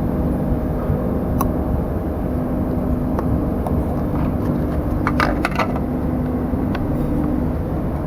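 Steady low background rumble with a faint hum, and a few light clicks, several close together about five seconds in.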